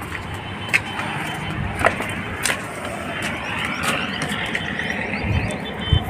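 Steady outdoor background noise with a few light clicks.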